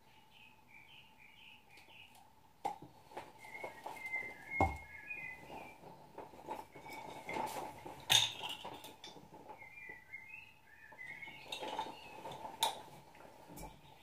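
A small songbird chirping in three short runs of quick notes, among scattered clicks and knocks of a stirring stick in a plastic cup and paint bottles being handled.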